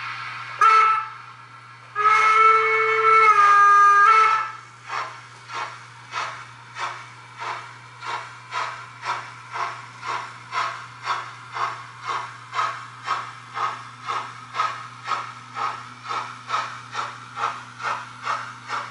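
Sound-equipped model steam locomotive on a Märklin layout: a brief hiss of steam, a short whistle blast, then a longer whistle that steps down in pitch near its end. The loco then sets off with rhythmic chuffing at about two beats a second, slowly quickening.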